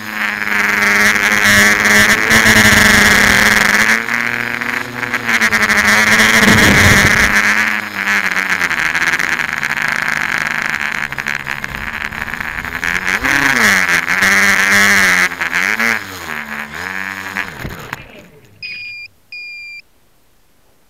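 Tricopter motors and propellers whirring loudly as heard through the onboard camera, their pitch swooping up and down with the throttle through the manoeuvres. About 18 seconds in the motors cut off as it lands in the grass, and two short high beeps follow.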